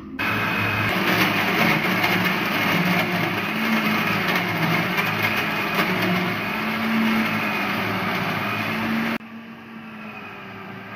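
Electric countertop blender running at full speed on a jug of bananas, milk, yogurt and ice cubes. It starts at once, runs steadily and cuts off abruptly about nine seconds in.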